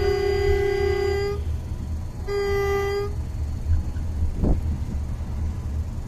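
Locomotive horn blowing as a warning to a dog on the track: a long blast that stops about a second and a half in, then a short second blast, over the steady low rumble of the moving train heard from the cab. A single thump follows about four and a half seconds in.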